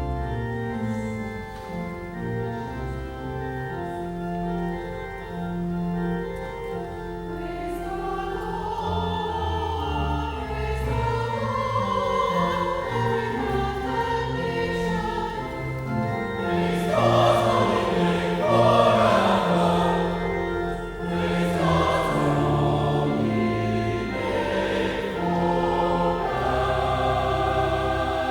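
Church organ playing, joined by a choir singing from about eight seconds in.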